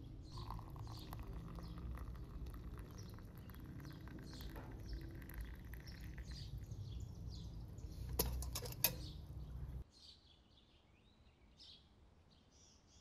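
Tea poured in a stream from a metal kettle into glass cups, over a low steady rumble, with birds chirping throughout. Two sharp clicks come near the end of the pouring, then the sound drops away abruptly, leaving quieter birdsong.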